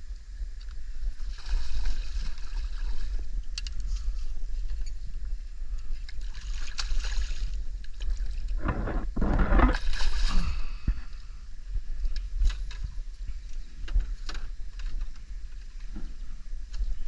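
Water sloshing and splashing around a small boat, with a steady low rumble of wind on the microphone and a few louder splashy surges, the biggest about two-thirds of the way through.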